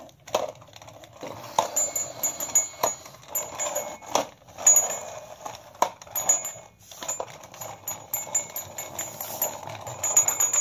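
A plastic toy police motorcycle pushed back and forth by hand across a rough floor: its wheels and plastic parts rattle and whir in irregular spurts, with sharp clicks.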